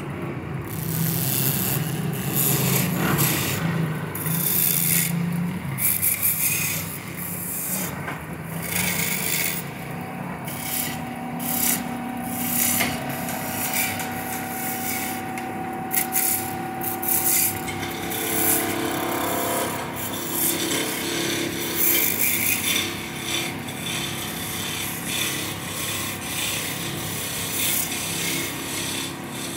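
Wood being worked on a lathe: a rasping scrape against the spinning workpiece that comes and goes in short, uneven passes.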